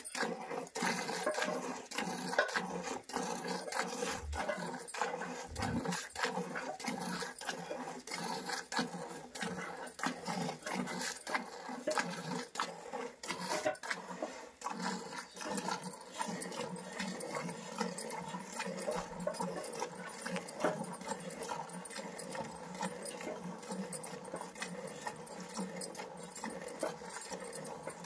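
Milk squirting from a cow's teats into a steel bucket of frothy milk during hand milking, in an even rhythm of about two squirts a second.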